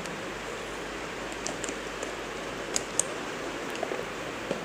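Fingers picking and prying at the seal of a small cardboard smartwatch box, making a few light clicks and scratches, the sharpest about three seconds in, over a steady hiss.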